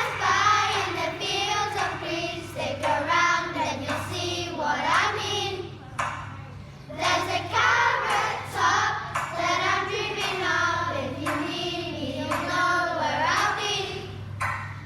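Children singing a song together, with a short break about six seconds in.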